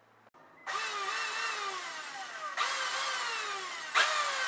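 Cordless drill's motor and chuck gearbox, out of its casing and run on 12-volt AC from a transformer, whirring in three surges. Each starts abruptly, about a second, two and a half seconds and four seconds in, and falls in pitch as it runs.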